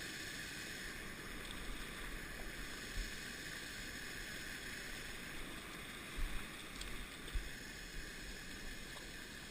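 Creek water running with a steady rush, with a few faint low bumps about six and seven seconds in.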